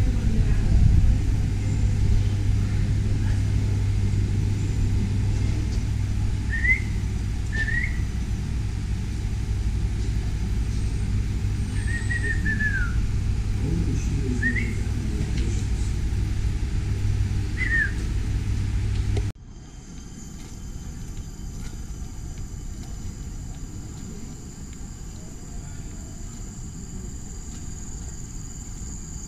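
A steady low rumble with a handful of short whistled bird calls over it. About two-thirds of the way through it cuts suddenly to a quieter outdoor background with a steady high-pitched insect drone.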